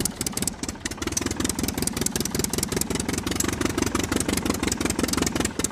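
Tractor engine running with a fast, even chugging.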